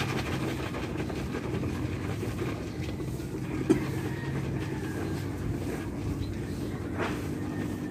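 Liquid sloshing and rattling inside a plastic hand-pump pressure sprayer as it is tipped back and forth to shake it, with a single sharp knock about three and a half seconds in.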